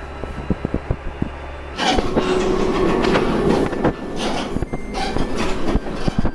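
Diesel railcar heard from inside the cabin: a low hum with light clicks of wheels over the rails, then about two seconds in the noise jumps up sharply to a loud, steady running sound with clattering wheels as the car picks up speed.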